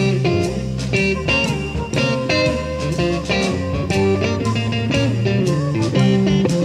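Background music: a guitar-led blues-rock track with a moving bass line and a steady beat.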